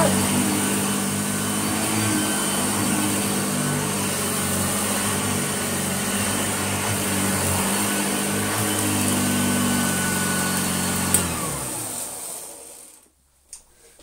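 Hoover Junior 1354A upright vacuum cleaner running steadily on carpet. About eleven seconds in it is switched off with a click and the motor winds down, falling in pitch and fading away over about two seconds.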